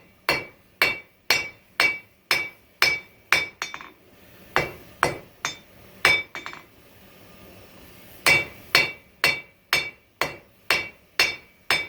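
Hand hammer striking hot coil-spring steel on an anvil to draw it down, about two blows a second, each with a bright ringing tone. The hammering breaks off for about a second and a half a little past halfway, then resumes at the same pace.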